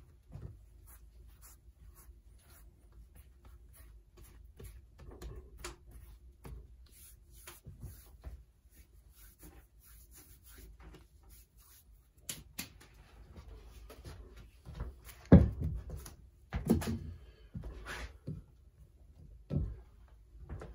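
Scattered clicks and knocks of objects being handled in a small room. They come more often in the second half, and the loudest knock comes about fifteen seconds in.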